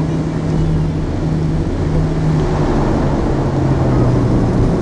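Cabin noise of a DHC-6 Twin Otter rolling along the runway after landing: the steady drone of its two PT6A turboprop engines and propellers over a low rumble, the drone sinking slowly in pitch.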